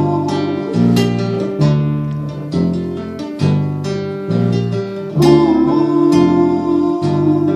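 Live acoustic music: plucked and strummed string chords over a steady, changing bass line, with a held note near the start and again about five seconds in.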